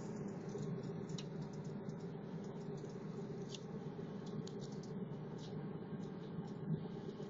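Steady low drone of a car in motion, heard from inside, with light clicks and scratching close to the microphone from the phone being handled against cardboard boxes and cargo.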